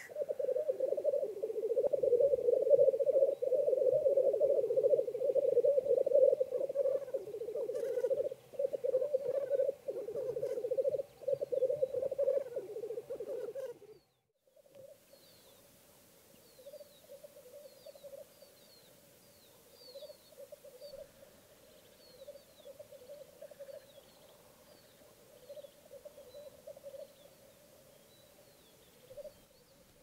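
Black grouse males bubbling (rookooing) at a lek: a continuous low, warbling chorus. It is loud for the first half, cuts off sharply about 14 s in, then goes on much fainter with thin, high chirps above it.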